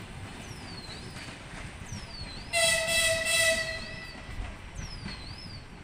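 Electric locomotive horn sounding one blast of about a second and a half, about two and a half seconds in, over the low rolling rumble of a departing passenger train.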